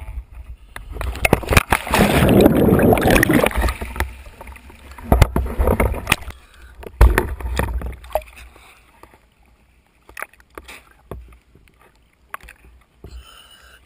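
A scuba diver splashes into the sea from a boat. There is a rush of water and bubbling right at the microphone for a couple of seconds, then water sloshing at the surface with a few sharp knocks of gear.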